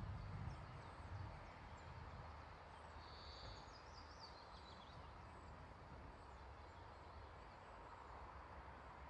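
The tail of a thunder rumble dies away in the first second or so, leaving faint outdoor quiet with small birds chirping, including a brief higher note about three seconds in.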